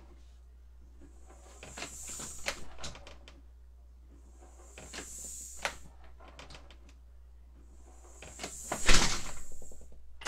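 Screen door swung on its freshly oiled hinges, giving no squeak: a few knocks and rattles of the door in its frame in three short bursts, the loudest a bang about nine seconds in as it shuts.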